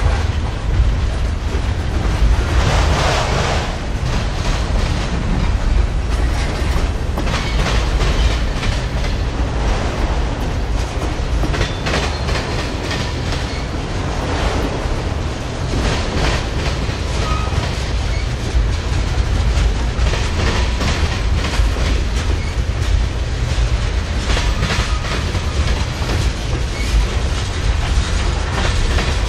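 Freight train cars rolling past at close range: a steady rumble with the clickety-clack of wheels over rail joints, and a couple of short, faint wheel squeals around the middle.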